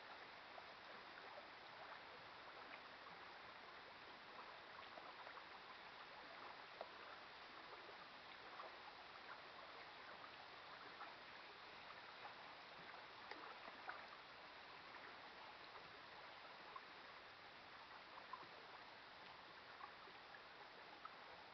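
Faint lapping and gurgling of small lake waves, with scattered light ticks of water, at near-silent level.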